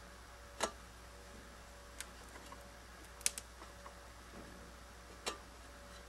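A few sharp, separate clicks or taps, one of them a quick double about halfway through, over a steady low hum.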